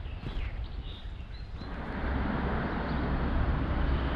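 Outdoor background sound: a few faint bird chirps, then about a second and a half in a steady low rumble with hiss sets in and stays.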